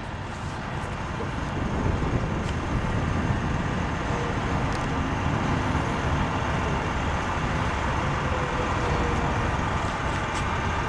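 Steady low rumble of idling semi trucks backed up in a stopped highway traffic jam, building a little over the first couple of seconds and then holding steady.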